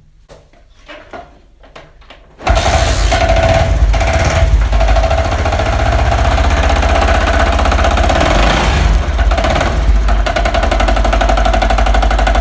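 Honda CD 70's single-cylinder four-stroke engine starts suddenly about two and a half seconds in and keeps running loudly with a fast, dense clatter. The engine has an abnormal noise from the clutch-cover side, which is the fault being demonstrated.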